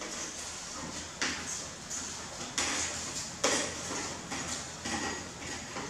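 Metal ladle scraping and knocking against a plastic basket as cabbage is pushed off it into a stainless steel pot: several separate scrapes and clatters, the loudest about three and a half seconds in.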